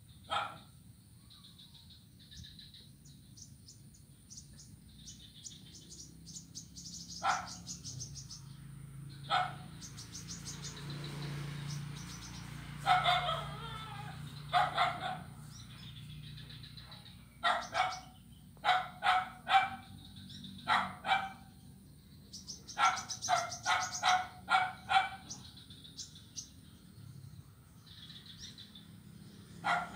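Short animal calls, some single and some in quick runs of two to four, with high bird chirps in between.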